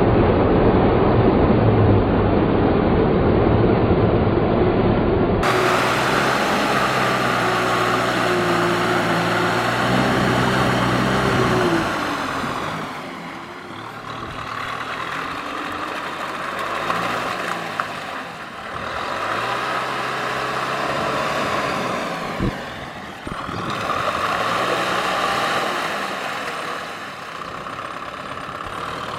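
Tractor engine running under load in deep mud, its pitch rising and falling as it revs. The sound changes abruptly about five seconds in, at a cut to another clip, and gets quieter in the second half. There is a single sharp knock near the end.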